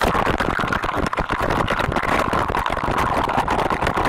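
A handheld electric tool's motor running continuously with a rough, steady noise, as during drilling work on a tiled wall.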